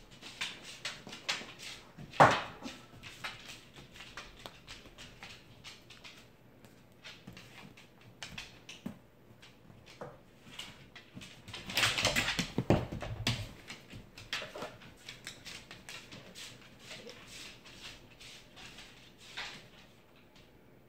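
A Saint Bernard puppy and Labrador retrievers playing with rubber Kong toys on a hardwood floor: scattered clicks and knocks from claws and toys, mixed with dog noises. There is a sharp knock about two seconds in and a louder stretch of dog noise about twelve seconds in.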